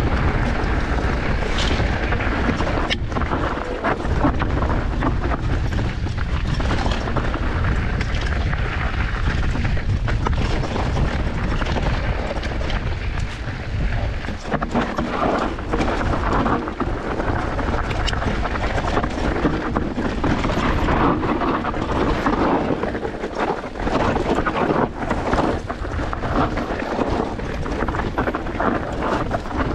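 Enduro mountain bike descending a rough trail at speed: a steady rumble of wind on the microphone and tyres on the ground, with frequent knocks and rattles from the bike.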